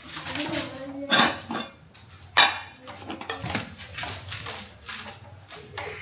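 Cooking pots and metal utensils clattering: a few sharp knocks and clinks, the loudest about a second in and again over two seconds in.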